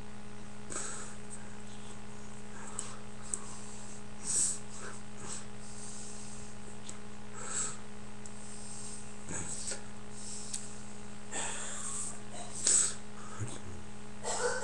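A few short breathy puffs and sniffs, mouth and breath noises, over a steady low electrical hum.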